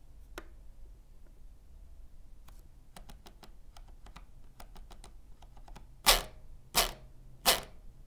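Keychron M6 wireless mouse's main scroll wheel being turned, giving sharp notched ticks. They are faint and scattered at first, then from about six seconds in come loud clacks about every 0.7 s: a horrible scroll wheel sound.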